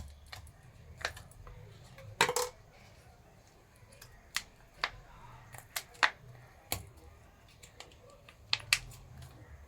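Scattered light clicks and taps of a spoon against containers as ice cream is added to a mixer jar, the loudest a little over two seconds in; the mixer is not running.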